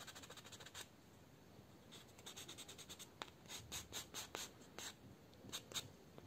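Four-sided nail buffer block rubbing across a fingernail in short, quick, faint scratching strokes, a few at first and then a rapid run in the second half. The nail surface is being roughened so the gel will grip.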